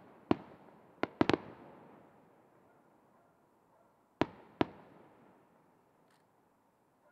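Aerial firework shells bursting overhead: sharp bangs with echoing tails that die away, four in quick succession in the first second and a half, then two more about four seconds in.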